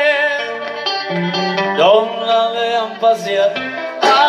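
A song with a singing voice and plucked guitar, played loud through a speaker cabinet of 8-inch mid-bass drivers and horn tweeters. The voice sings long notes with vibrato, and the sound carries little deep bass.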